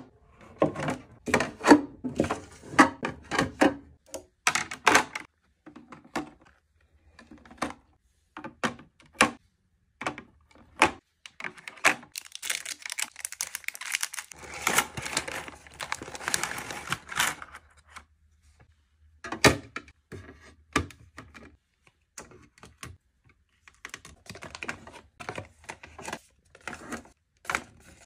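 Sharp clicks and taps of bottles and packets being set into clear plastic drawer organizers, with a denser stretch of packaging rustle around the middle.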